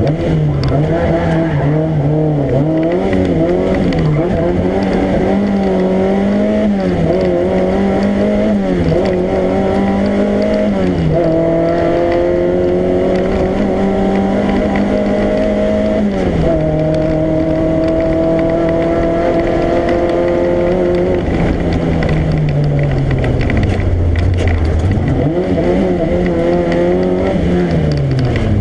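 Rally car engine heard from inside the cabin, driven hard: the revs waver up and down, then climb in two long steady pulls with a sharp drop in pitch at each gear change, about eleven and sixteen seconds in. The revs then fall away, as when lifting off for a corner, and climb again near the end.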